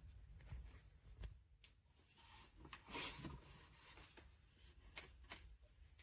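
Near silence with a few faint clicks and a brief soft rustle about three seconds in.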